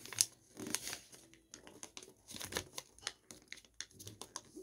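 Origami colour paper rustling and crinkling under the fingers as it is folded and its creases pressed flat, in faint, short, irregular scrapes.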